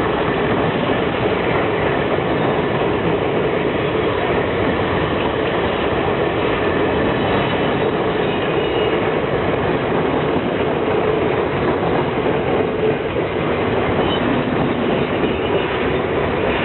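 Sri Lanka Railways train running past on the track: a loud, steady rumble of wheels and cars.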